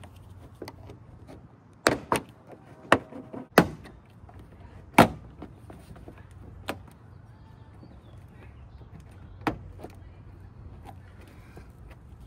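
Plastic bumper cover of a 10th-gen Honda Civic snapping loose from its retaining clips as it is pried and pulled away from the fender: about seven sharp plastic clicks and snaps, several close together in the first four seconds, the loudest about five seconds in.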